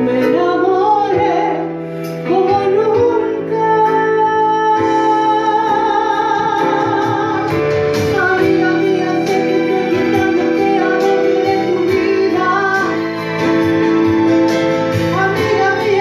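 A woman singing a slow Spanish-language ballad into a microphone over instrumental backing music, with long held notes.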